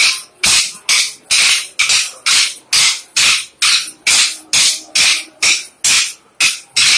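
Kolatam dance sticks clacking together in a steady beat, about two strikes a second.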